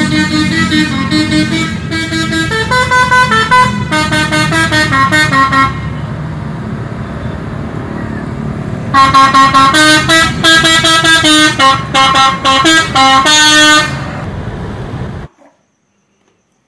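Tour bus's multi-tone melodic air horn ('telolet' horn) playing quick runs of short, stepped notes, twice, with the engine running in the gap of about three seconds between the runs. The sound cuts off suddenly near the end.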